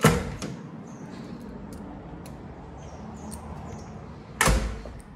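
A Hyundai HB20's door unlatched and pulled open with a sharp clack, then shut about four and a half seconds in with a heavy thump.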